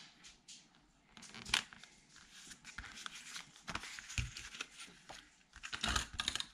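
Photo prints and cardstock mats sliding and rustling against each other on a paper layout, with light taps. Near the end, a short burst of rapid clicking and rasping as a tape glue runner lays adhesive and a photo is pressed onto its mat.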